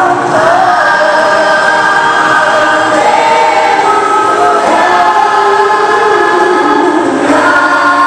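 Youth church choir of mixed voices singing, holding long notes, with the harmony moving to new notes about three seconds in and again near the end.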